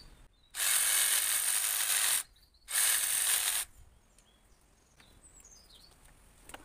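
Cordless jigsaw running in two bursts, a longer one about half a second in and a shorter one after a brief pause, its reciprocating blade making a second pass along the nock slit in a wooden arrow shaft to widen the thin cut. Faint bird chirps follow once the saw stops.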